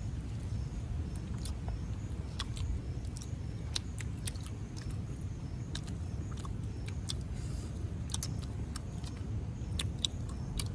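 People biting and chewing pieces of cooked chicken: scattered small clicks and crunches over a steady low rumble.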